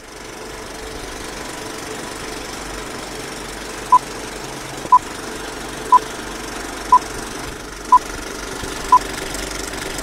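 Old-film countdown-leader sound effect: a film projector running with a steady rattling whir, and a short high beep once a second, six times, starting about four seconds in, marking the countdown numbers.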